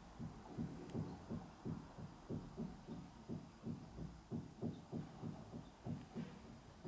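Soft, low thumps repeating evenly about three times a second, like a slow pulse.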